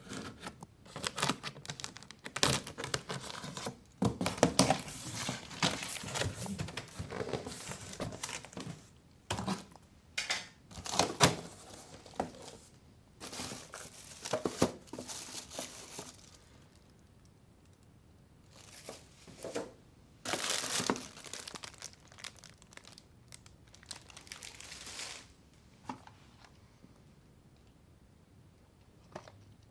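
Packaging being handled and opened by hand: crinkling and tearing in dense, irregular bursts, thinning out after about sixteen seconds, with a few more bursts before it goes quiet near the end.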